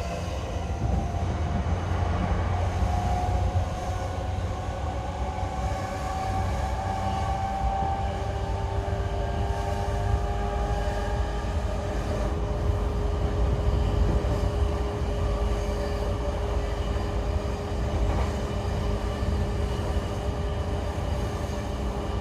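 On-board running sound of an E233-8000 series electric train with a Mitsubishi IGBT-VVVF inverter. Traction motor and inverter tones rise slowly as the train gains speed, then give way to a single steady tone, all over a constant low rumble of wheels on rails.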